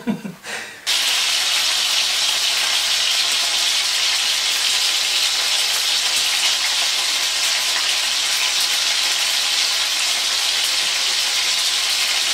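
Pieces of food frying in hot oil in a frying pan: a steady sizzle that starts abruptly about a second in.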